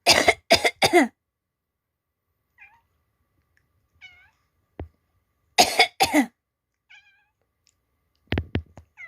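A person gives deliberate fake coughs in quick bursts of two or three, at the start, in the middle and near the end. Between the bursts a calico cat answers with short, quiet meows.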